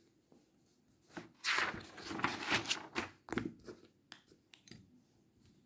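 Paper rustling and crinkling as a sheet of a spiral-bound drawing pad is turned over, in a few bursts over about two seconds, followed by a few light clicks as pens are handled.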